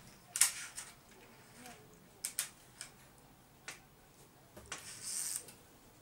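Scattered light taps and clicks, the loudest about half a second in, with a brief rustle near the end: kittens' paws and a string toy on a wooden tabletop.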